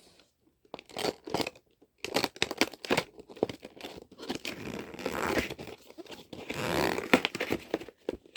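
Toy packaging being torn open by hand: a short rip about a second in, then a run of tearing and crinkling from about two seconds in.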